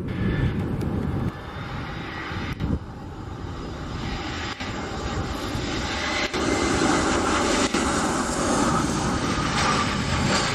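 Airbus A319 Corporate Jet's twin jet engines on landing approach, a steady jet rumble that grows louder and brighter from about halfway through as the airliner flares low over the runway.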